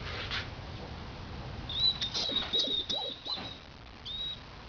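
Live feeder rat squeaking: a quick run of short high-pitched squeaks starting a little under two seconds in, then one more near the end, with some faint rustling and knocks.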